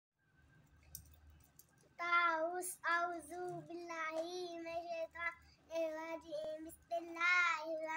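A young girl singing in short phrases of held, steady notes, starting about two seconds in.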